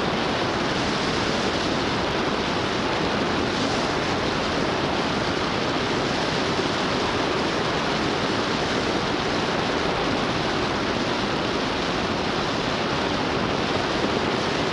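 Steady rush of wind over an exterior roof-mounted camera's microphone, mixed with tyre and road noise from a car driving at steady speed.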